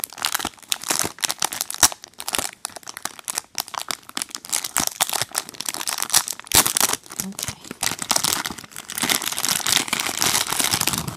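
Thin plastic packaging bag crinkling and crackling in quick, irregular bursts as its sticky adhesive seal is peeled apart and the toy inside is worked out.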